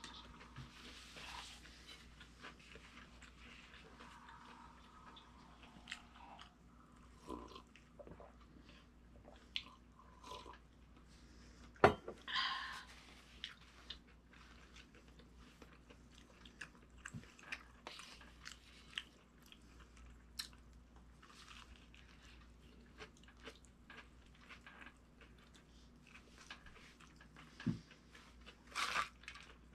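Close-up eating sounds: chewing with small crunches and scattered light clicks. A single sharp knock about twelve seconds in is the loudest sound, and a short crackly burst comes near the end.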